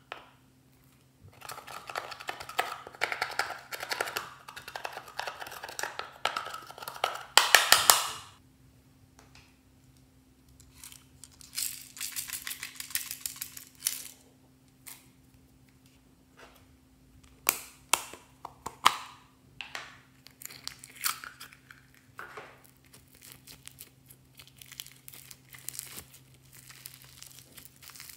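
Slime being worked by hand, crackling and popping in dense bursts with short pauses between them. The loudest burst comes about eight seconds in.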